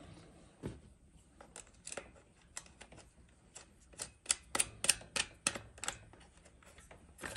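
Irregular light clicks and taps of steel mounting brackets knocking against a plastic battery box as it is worked into place by hand.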